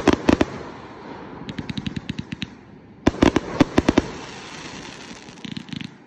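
180-shot firework cake firing in rapid volleys of sharp bangs: a loud cluster right at the start, a run of lighter pops about a second and a half in, another loud volley around three seconds in, and a few fainter pops near the end.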